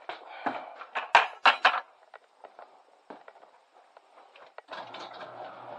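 A quick run of knocks and clatters as things are handled and set down, the loudest about a second in, then scattered light clicks; near the end a steady low hum starts up.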